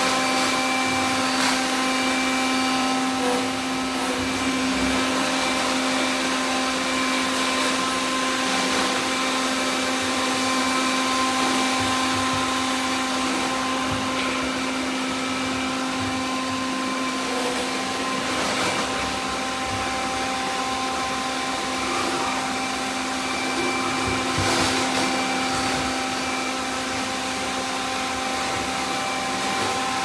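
Several robot vacuums running at once: a steady whir of motors and brushes, with several steady hums of different pitches layered together and a few light knocks.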